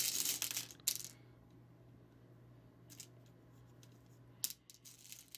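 Small hard candies rattling and clicking in a plastic dish as fingers pick through them: a burst of rattling at the start, another about a second in, then a few light clicks near the end.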